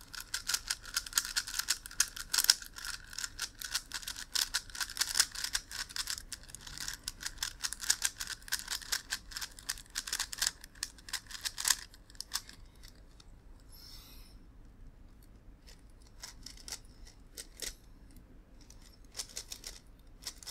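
Megaminx puzzle being turned rapidly, a dense run of plastic clicks and clacks for about twelve seconds, then only scattered clicks near the end.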